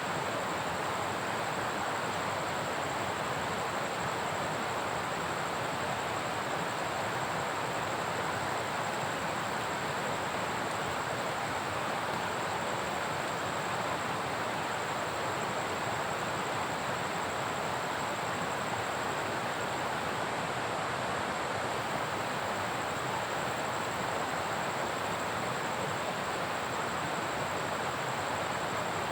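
Steady, unbroken rushing of water in a forest downpour, with no distinct drops or splashes standing out. A thin, steady high tone runs through it.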